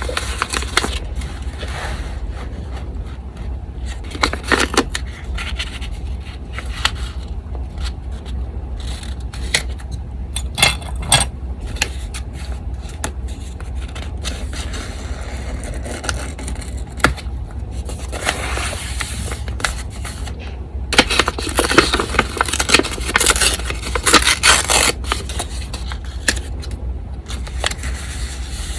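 Coffee-dyed paper being handled on a desk, scraping and crinkling in bursts several times, busiest in the later half. A steady low electric-fan hum runs underneath.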